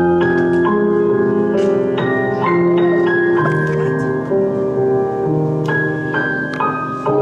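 Slow ballad music led by held keyboard chords that change every half second to a second: an instrumental passage with no singing.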